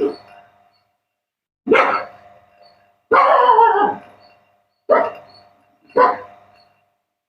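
A dog barking five times, the third bark longer and falling in pitch.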